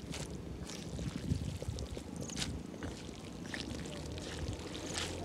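Wooden chopsticks stirring and lifting saucy instant noodles in an aluminium pan: wet stirring sounds with scattered light clicks, several times a second.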